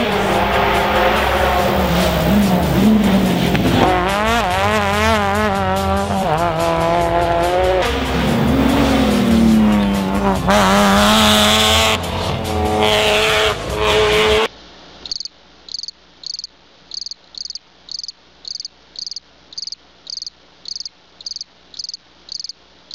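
Rally car engine at high revs on a special stage, the pitch climbing and dropping sharply with gear changes and lifts as the car drives through; it cuts off abruptly about two-thirds of the way in. Then crickets chirp in an even rhythm, about two chirps a second.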